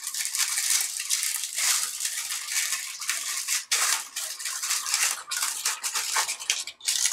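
A sheet of baking paper crinkles and rustles as it is folded over and over into a narrow cone. The crinkling runs almost without a break, with many small sharp crackles in it.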